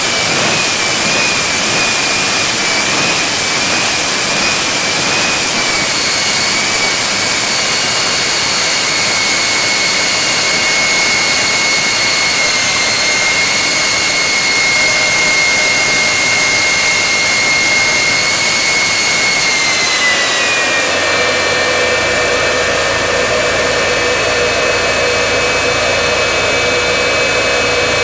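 Jet engine of a jet-powered semi truck running, a loud steady whine with a high tone over it. About twenty seconds in the whine dips a little in pitch, and it starts to rise again near the end.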